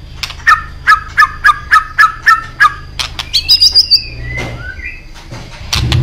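White-rumped shama (murai batu) singing: a rapid run of about ten sharp repeated chirps, roughly four a second, then a high whistled warble and a falling note.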